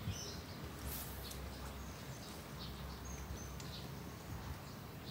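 Outdoor ambience: a few short, high bird chirps scattered over a low, steady rumble.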